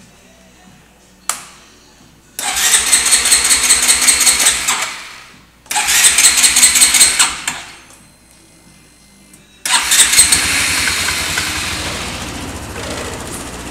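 Cold start of a 2010 Honda SH150i scooter's single-cylinder four-stroke engine. After a click, the electric starter cranks twice for two to three seconds each without the engine catching. On the third try it fires and settles into a steady idle.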